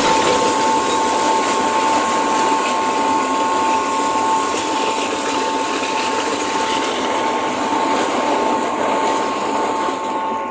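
Toy train running steadily along its track, a continuous rattling rumble with a held high motor whine.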